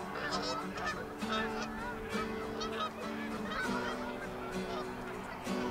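Many birds calling in short, quick chattering calls over background music that holds steady low chords.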